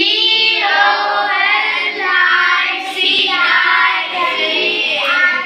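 A group of children chanting in unison in a sing-song rhythm, reading a spelled-out English word aloud. The chant stops just before the end.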